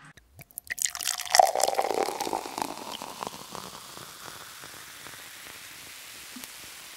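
Diesel fuel running from a battery-powered transfer pump's hose into a plastic fuel can as a torpedo heater's tank is drained for storage. After a few clicks it splashes loudly about a second in, then settles into a steady, quieter flow.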